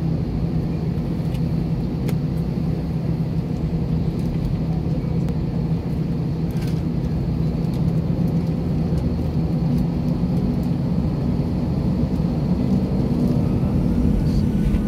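Steady cabin drone of an airliner taxiing with its jet engines at idle, heard from inside the cabin: an even low hum over a rumble.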